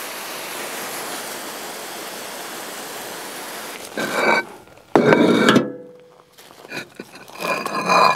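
Garden hose spray nozzle misting water in a steady hiss for about four seconds, then concrete pavers being lifted off a pallet, clacking and scraping against each other in three short bouts.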